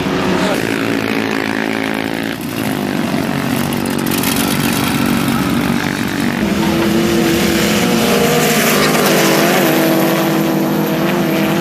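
Gasoline golf cart engine running steadily. Its pitch dips about two and a half seconds in, then climbs as it revs up and holds a higher, steady note through the second half.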